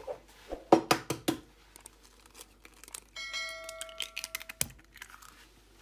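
Eggshells cracking and crunching as eggs are broken into a bowl of flour: a handful of sharp cracks, loudest about a second in. Near the middle a bright electronic notification chime of several steady tones sounds for about a second and a half and cuts off sharply, matching the subscribe-button bell overlay.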